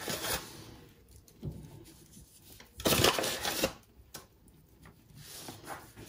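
Dough being handled and pulled from its bowl: a few soft rustles and knocks, with one louder rustling scrape about three seconds in.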